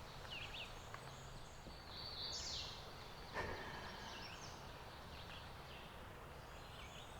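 Small songbirds chirping and trilling in spring woodland, with one sharp crack or knock about three and a half seconds in.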